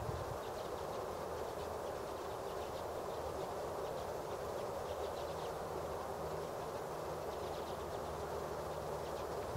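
A flock of common redpolls twittering, faint bursts of quick buzzy calls coming and going over a steady low background rumble.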